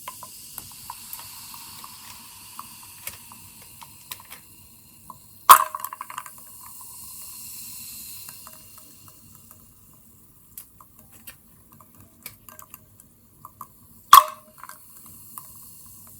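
Plum-flavoured carbonated water fizzing, a steady hiss of bubbles with many tiny pops and crackles that thins out in the second half. Two sharp clinks with a short ring, one about a third of the way in and one near the end.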